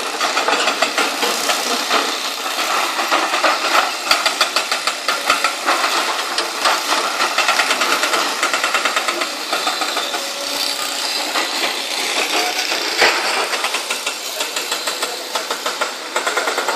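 Hydraulic rock breaker on a LiuGong CLG920D excavator hammering rock in rapid, steady blows, with the excavator's diesel engine running under it.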